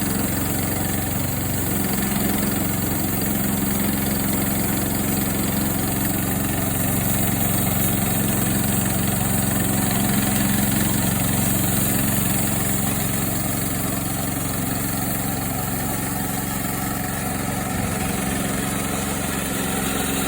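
Engine of a portable bandsaw mill running steadily.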